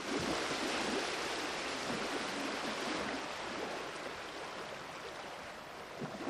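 Steady rush of running water that slowly fades.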